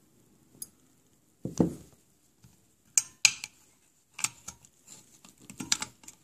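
Screwdriver prying and tapping among the metal parts of an opened hard drive, around the head actuator arm and its magnet: scattered sharp metallic clicks with quiet gaps, and a duller knock about a second and a half in.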